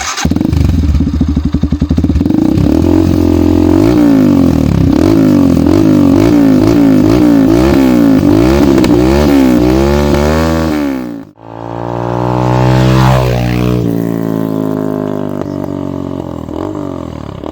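Tekken 250 motorcycle engine through an Akrapovic exhaust, revved in a quick run of repeated throttle blips, rising and falling about once a second. Near the middle the sound drops out sharply for a moment, then one long rev climbs and slowly falls back.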